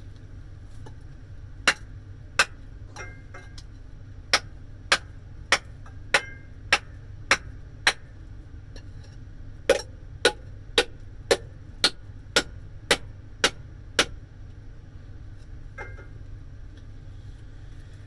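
A cast alloy gear with a bearing in it is banged hard on the floor again and again to knock the bearing out, and the bearing stays stuck. There are about eighteen loud, sharp impacts: two single knocks, then a steady run of seven, a short pause, and a second run of nine.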